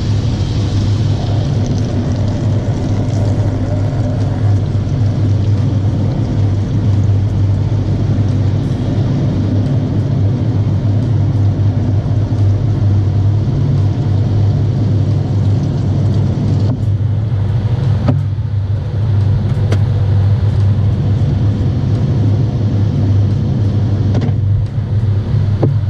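Automatic car wash machinery running over a car: a loud, steady low rumble with a hiss of spray and washing on top. The hiss thins briefly about two-thirds of the way through, and again near the end.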